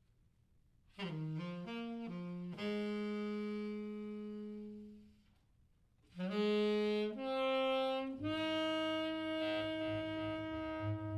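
Saxophone playing two short phrases of quick rising notes, each settling into a long held note; the first held note fades out about halfway through, and after a short pause the second phrase climbs higher. A low, rough pulsing sound sits under the last held note.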